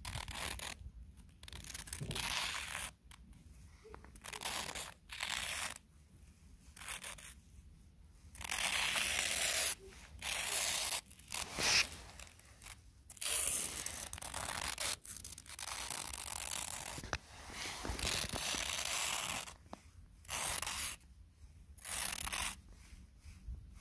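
Footsteps crunching in snow at a steady walking pace, about one crunch every second or so, with short quiet gaps between steps.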